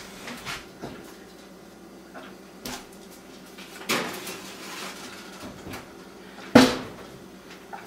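Oven door and metal baking sheet knocking and clicking as a tray of food goes into an electric range's oven and the door is shut. A few scattered light clicks, a firmer clunk about four seconds in, and one sharp knock, the loudest, about a second before the end.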